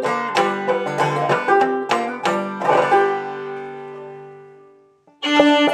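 Banjo picking a short phrase that ends on a chord, which rings and fades to silence about five seconds in. Just before the end, fiddle and clawhammer banjo strike up together.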